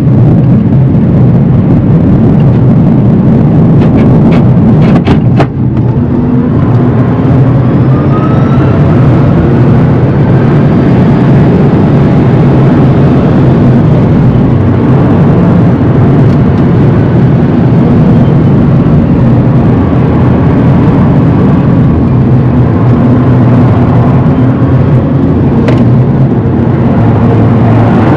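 Rimac Nevera electric hypercar at speed, heard from inside the cabin: loud road and tyre rumble with a faint electric-motor whine that rises in pitch as the car accelerates. A few sharp clicks come around five seconds in and again near the end.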